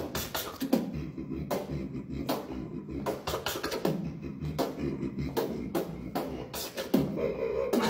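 Beatboxing: a mouth-made beat of sharp snare- and hi-hat-like hits over a pulsing bass, kept at a steady rhythm.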